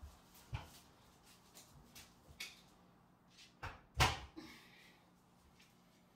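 A few short knocks and clatters, like things being set down or handled, with the loudest two close together about four seconds in.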